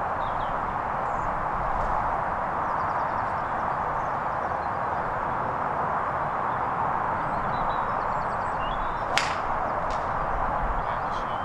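A golf club strikes a ball once, a sharp click about nine seconds in, followed by a fainter click. Under it runs a steady outdoor hiss with faint bird chirps.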